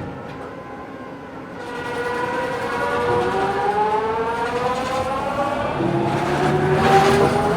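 Metro train pulling away: the whine of its electric traction motors rises steadily in pitch and grows louder after a quieter first two seconds.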